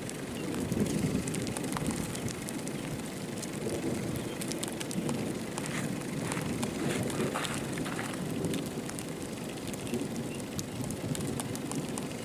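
Steady rain and wind noise during a severe thunderstorm, with many scattered sharp ticks of drops striking.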